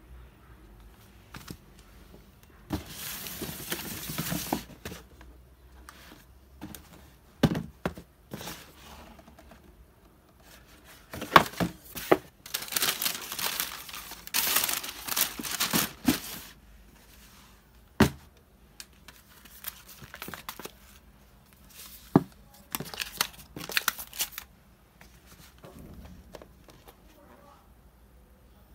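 Tissue paper crinkling and rustling in several bursts as it is handled in a cardboard shoebox, with a few sharp knocks in between.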